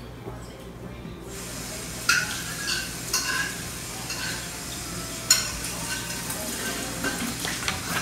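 Kitchen sounds: dishes and cutlery clinking now and then, over a steady hiss that starts about a second in.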